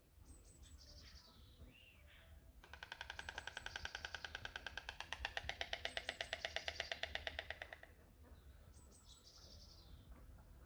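White stork bill-clattering: a rapid wooden rattle of beak strikes lasting about five seconds, growing louder and then stopping abruptly. A songbird sings a short descending phrase before it and again after it.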